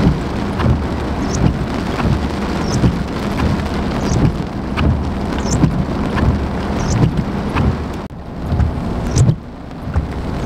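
Heavy rain falling in a summer thunderstorm: a steady downpour hiss with frequent soft knocks of drops and a faint, short high tick recurring about every second and a half. The rain sound drops a little near the end.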